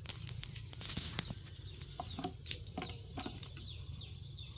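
Chickens clucking, with a run of short, high, falling peeps a few times a second, mixed with light clicks and rustles.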